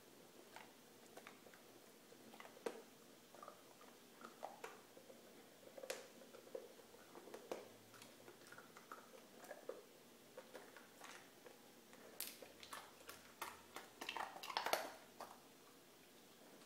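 Cocker spaniel licking and mouthing an ice cube on a wet hardwood floor: scattered faint wet clicks and smacks, with a quick run of sharper clicks about twelve to fifteen seconds in.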